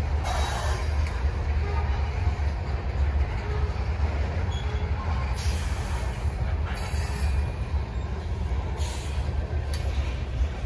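Freight train of covered hopper cars loaded with frac sand rolling past at speed: a steady low rumble of wheels on rail, with short high hisses about half a second, five and a half, and nine seconds in.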